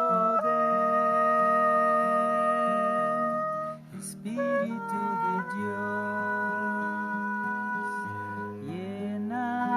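Oboe and classical guitar playing a duet: the oboe holds long sustained notes over the guitar, breaking off briefly about four seconds in before taking up another long note.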